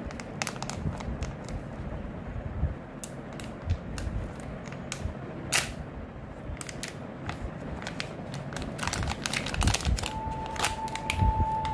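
Thin clear plastic zip bag crinkling and crackling as it is handled and opened by hand, a run of small irregular crackles and clicks. About ten seconds in a steady single tone starts and holds.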